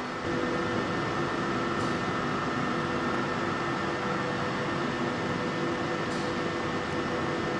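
Steady hum and whir of carbon-fibre fabric production machinery running, with a few constant tones over an even noise; it steps up slightly just after the start and then holds level.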